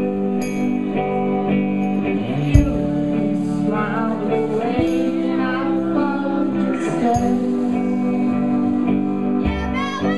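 Live band music: guitars sounding sustained chords with a voice singing over them. A sharp thump about two and a half seconds in is the loudest moment, with a softer one a couple of seconds later.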